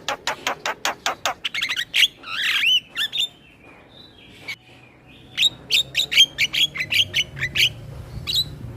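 Male Javan myna singing: rapid runs of sharp, clipped notes, about seven a second, with a harsh warbling note about two seconds in, a pause in the middle, then another fast run.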